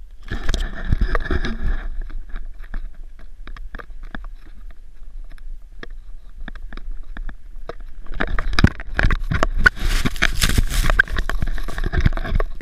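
Wind rumbling on an action camera's microphone, with crunching and scraping snow. Close rustling of the camera being handled fills the first two seconds, then comes a stretch of scattered clicks. From about eight seconds in, a loud, dense scraping rush of snow takes over as the rider slides down the slope.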